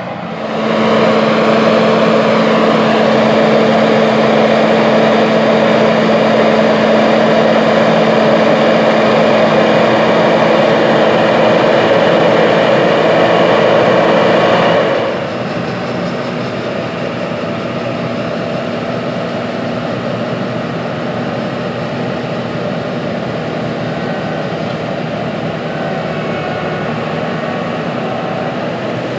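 John Deere combine harvester running while harvesting wheat: a dense, steady machine drone with a constant hum. About halfway through it drops suddenly to a quieter, steady drone.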